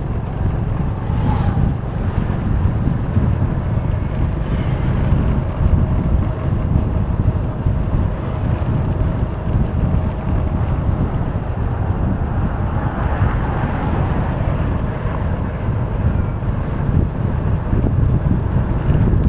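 Wind buffeting the microphone of a moving vehicle: a heavy, steady rumble, with a faint steady engine-like tone under it in the middle stretch.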